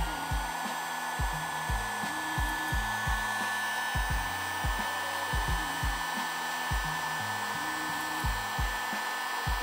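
Electric heat gun running steadily: the rush of its hot-air blower with a thin fan whine on top, shrinking heat-shrink tubing over a crimped wire splice.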